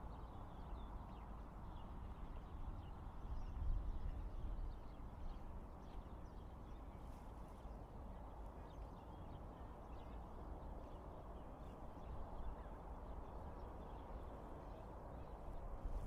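Distant road traffic on the Prince of Wales motorway bridge: a steady low rumble and tyre hiss that swells briefly about four seconds in.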